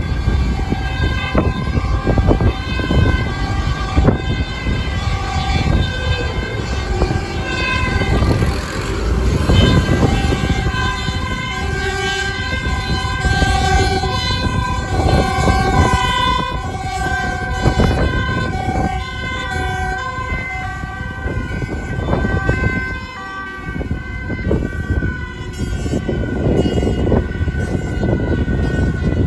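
Emergency vehicles' two-tone sirens, several overlapping, each switching between a high and a low note about once a second as they approach, over a loud low rumble of passing road traffic.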